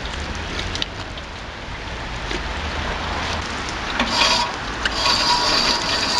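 Steady hiss of rain falling. From about four seconds in, water from a cast-iron street drinking fountain runs and splashes onto its drain grate.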